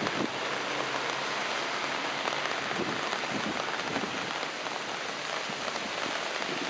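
Steady rain falling on wet paving and grass, an even hiss.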